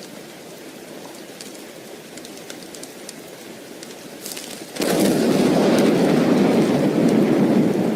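Soft steady rain with faint scattered crackles, then about five seconds in a loud roll of thunder breaks in suddenly and keeps rumbling over the rain.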